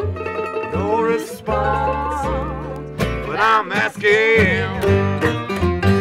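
Acoustic string band playing a slow tune in a country-bluegrass style: picked mandolin and acoustic guitar over plucked upright bass, with a wavering melody line on top.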